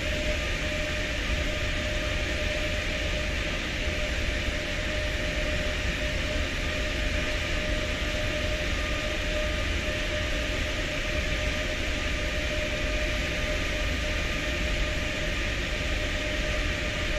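Steady ship machinery noise: a constant hiss with an unchanging humming whine over a low rumble.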